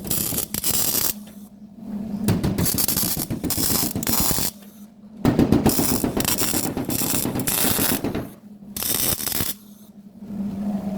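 Welder crackling in several bursts of one to three seconds, with short pauses between them, as a car's front panel is welded on.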